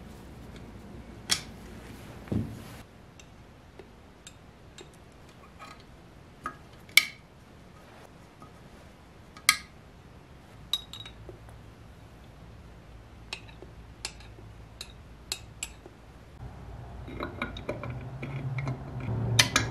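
Steel engine parts clicking and clinking as they are handled and fitted into an open crankcase: valve tappets and the camshaft gear of a Briggs & Stratton L-head single being set in place, a scatter of separate sharp knocks. A low steady hum comes in near the end.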